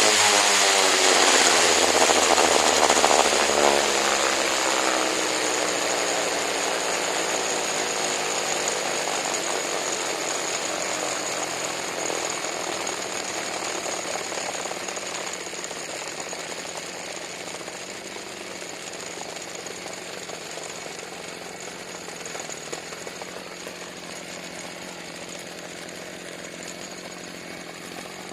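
A weed eater's small two-stroke engine spinning a heavy ATV flywheel: a loud mechanical whir with a high whine. Its pitch falls over the first few seconds, then it grows steadily quieter, like the flywheel winding down.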